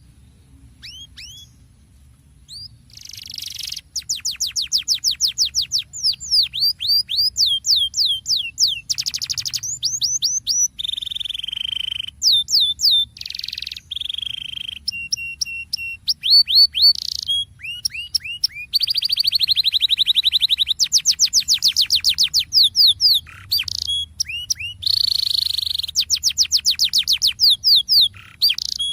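Domestic canary singing a rolling song: long, fast trills of repeated notes, broken by short steady whistles as it moves from one phrase to the next. The song starts faintly and becomes full and loud about three seconds in.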